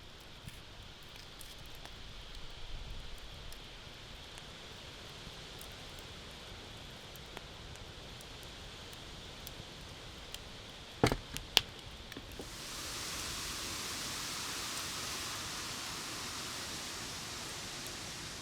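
Campfire crackling with scattered small pops and two sharp snaps about eleven seconds in. About a second later a steady rushing hiss sets in and holds.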